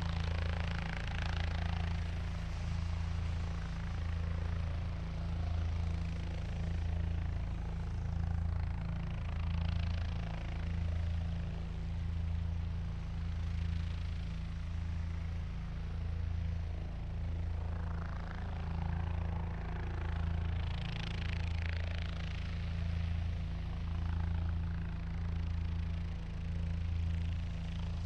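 Helicopter sound effect: a steady low rotor throb that pulses about once a second, under a rushing engine and rotor-wash noise that swells up a few times.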